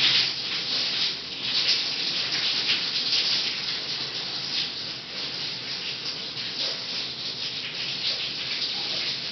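Steady hiss of a running shower, its spray of water heard as background noise.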